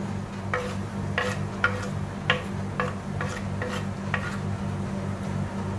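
Chopped coriander leaves being swept off a wooden cutting board into a pot of curry: about eight light scraping knocks, roughly two a second, as the board and hand work against the metal pot's rim, stopping about four seconds in. A steady low hum runs underneath.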